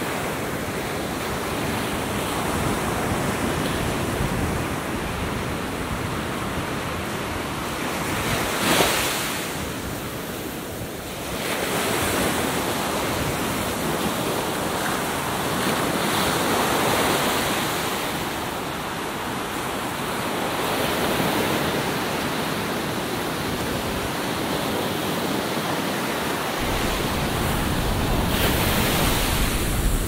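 Atlantic Ocean surf breaking and washing up a beach in slow swells, with one sharper crash about nine seconds in. Wind on the microphone adds a low rumble near the end.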